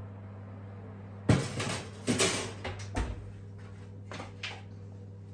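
Metal baking tray being put back into an oven and the oven door shut: a sharp clatter about a second in, then a scrape and a few clunks that die away.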